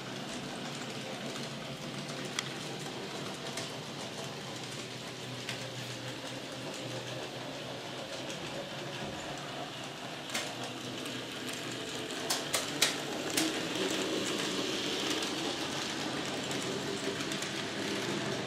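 Model trains running on a layout: a steady mechanical hum of motors and wheels on track, with a few sharp clicks in the later part, the loudest about two-thirds of the way through.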